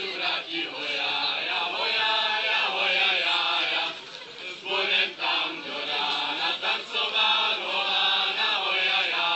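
A group of people singing a folk song together without instruments, in long held phrases with a brief break about four seconds in.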